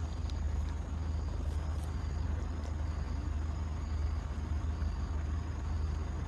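Steady low rumble of road traffic, even throughout.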